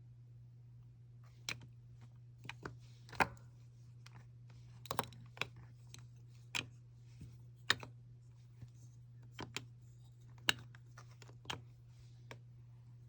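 About a dozen light, irregular clicks and taps of small plastic jars of nail powder and their lids being handled and set down, over a steady low hum.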